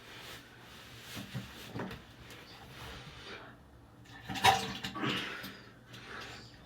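Watery diarrhea and farts sputtering and splashing into toilet-bowl water. Small spurts come a second or two in, then the loudest burst about four and a half seconds in, trailing off in sputters.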